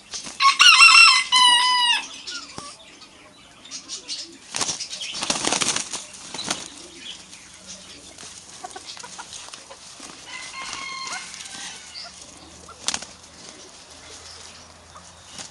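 A chicken calling loudly in two drawn-out pitched notes near the start, then a burst of wing flapping about five seconds in, and a fainter call around ten seconds in.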